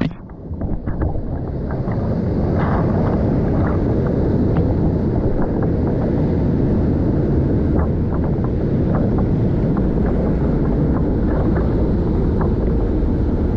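Whitewater rapids of a river in high flow: a loud, steady rushing of churning water, with scattered small splashes and drips close by. In the first second the sound is briefly quieter and muffled before the full rush takes over.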